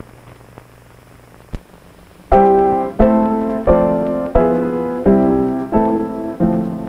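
Hiss and low hum of an old film soundtrack with a few clicks, then, a little over two seconds in, piano music begins: a chord struck about every two-thirds of a second, each one dying away.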